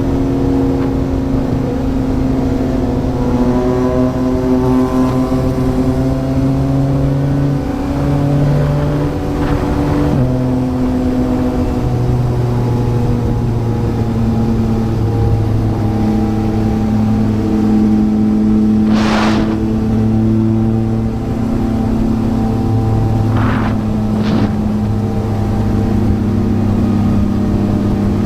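Yamaha MT-09's three-cylinder engine running through a Yoshimura R11 exhaust while riding. It holds a steady note that steps to a new pitch several times, with short rushes of noise about two-thirds of the way through.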